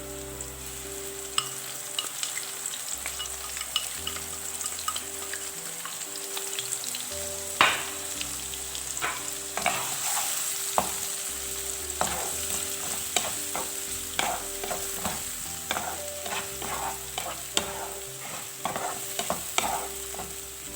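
Fried potatoes and freshly added ground masala paste sizzling in hot oil in a pan, with a spoon stirring and scraping against the pan. The scraping taps come thick and fast from about a third of the way in, starting with a sharp knock.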